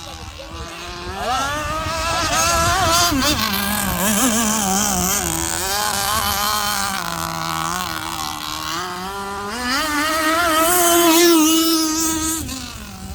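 Petrol-engined radio-controlled power boat running on the water, its high-pitched engine note wavering and sliding up and down as it speeds by, getting louder twice and fading near the end.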